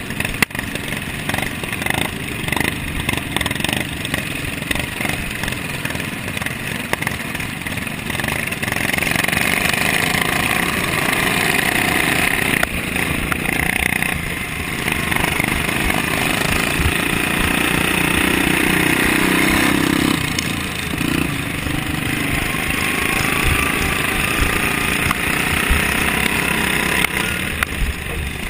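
Racing lawn mower's Briggs & Stratton Vanguard engine running hard at race speed, heard close up from the mower itself, with other racing mowers running nearby. It gets louder about a third of the way in, and the engine pitch rises and falls as the driver gets on and off the throttle.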